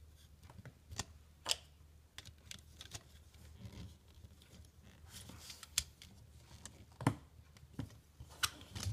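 Lego plastic parts clicking and rattling as a minifigure and pieces are handled and pressed into place on a small Lego toy car, a scatter of light irregular clicks with a few sharper ones near the end.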